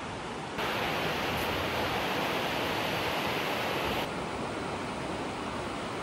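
River rapids rushing over rocks as a steady hiss of water. It grows louder and brighter from about half a second in until about four seconds in, then settles back.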